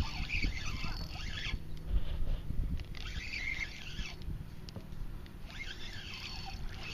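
Spinning reel being cranked in three short spells while a hooked fish is reeled in, its gears giving a squeaky, chattering whir, over low rumbling handling noise.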